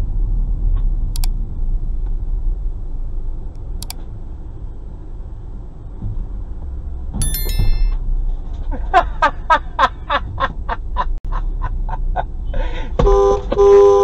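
Low engine and road rumble inside a car. A short high beep comes about seven seconds in, then a run of quick chirps at about four a second. Near the end a car horn honks loudly, twice in close succession.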